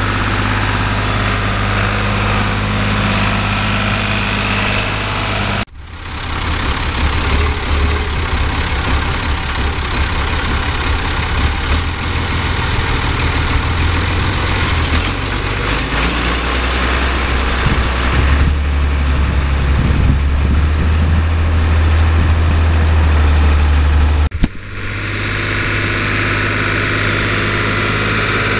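Renault 110-14 tractor's diesel engine running steadily under load while pulling a plough through a field. The sound breaks off abruptly about six seconds in and again near the end where the shots change, and the middle stretch is louder, with a heavier low rumble.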